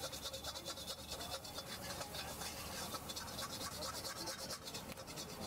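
Metal spatula scraping against a black wok in quick, repeated strokes while egg bhurji is stir-fried.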